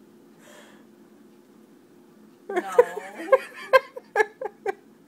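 A woman bursts out laughing about two and a half seconds in: a rising then falling voiced laugh followed by a quick run of short 'ha' pulses.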